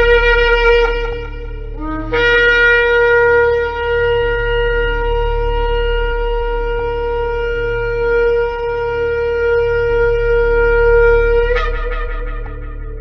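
Shofar blown in long sustained blasts: one blast ends about two seconds in, followed by a brief lower note, then a long steady blast of about nine seconds that jumps up in pitch at the end and fades out.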